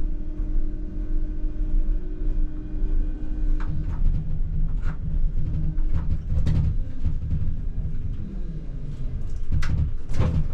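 ČKD Tatra T6A5 double-set tram running along the track, heard from the cab: a steady low rumble of wheels on rails, broken by several sharp knocks over the track. A steady whine fades out about three and a half seconds in, after which the rumble grows heavier.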